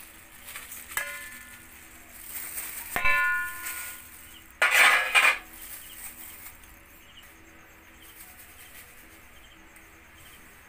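Stainless steel dish tray knocking against a stainless steel mixing bowl. A ringing clink comes about a second in and a louder metallic clang about three seconds in, followed by a brief rustling noise near five seconds as seasonings are tipped out.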